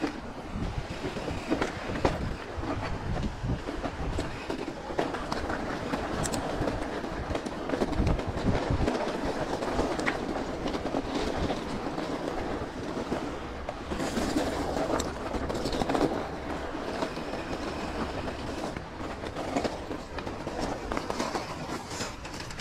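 Mountain bike rattling and clattering as it rolls over rough rocky ground: tyres on loose stones and the bike's parts knocking, with irregular sharp knocks.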